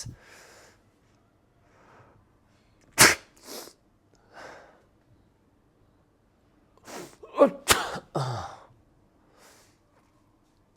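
A man imitating sneezes: a short breathy build-up and a sharp sneeze about three seconds in, then a run of short breaths ending in a second sharp sneeze just under eight seconds in.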